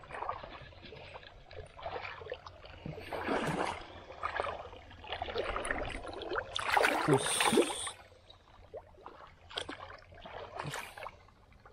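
Shallow pond water splashing and sloshing as hands grab at a large koi in the water. The biggest splash comes about seven seconds in as the fish churns the surface, followed by a few small, scattered splashes.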